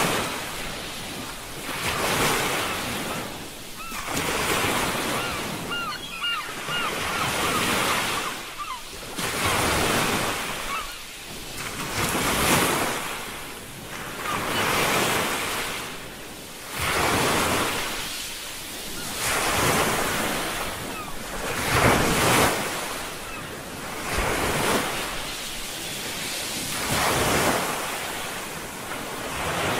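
Recorded sea surf, waves washing in and out in regular swells about every two and a half seconds.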